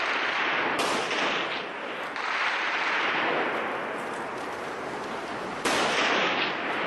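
Gunfire during a firefight, heard as scattered cracks through a steady rushing noise on a helmet-mounted camera's microphone. The rushing noise jumps louder and brighter twice, about a second in and again near the end.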